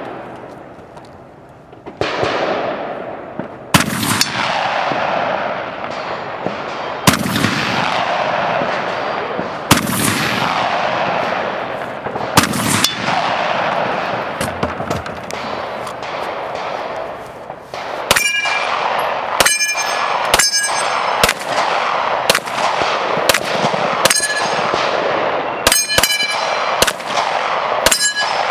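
Gunshots at steel targets. First come single shots about three seconds apart, each followed by a long fading ring. About two-thirds of the way in, a quicker string of shots begins, with the hit steel plates ringing in clear tones.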